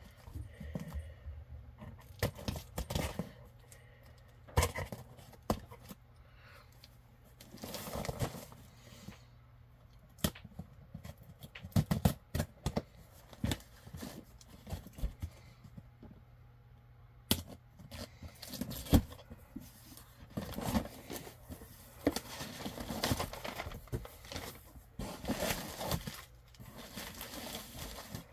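Cardboard shipping box being opened by hand: packing tape slit and torn, flaps pulled and cardboard scraping and rustling, with irregular knocks and taps.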